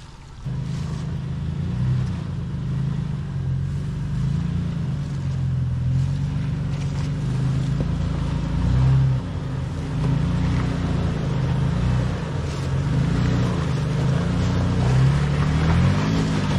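SUV engine being driven off-road, its revs rising and falling again and again. It starts suddenly about half a second in.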